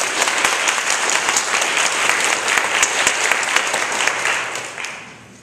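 Church congregation applauding, the clapping dying away near the end.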